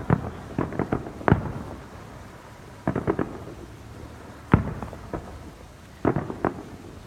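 Fireworks bursting in clusters of sharp bangs and crackles, with one single loud boom about halfway through.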